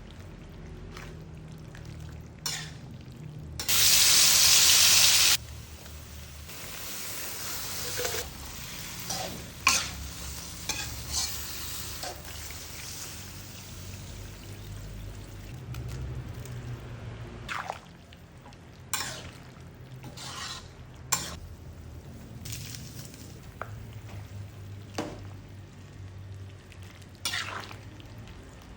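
Food frying in a pan: a loud burst of sizzling from about four seconds in, lasting under two seconds, then stirring with scattered knocks and scrapes of a utensil against the pan.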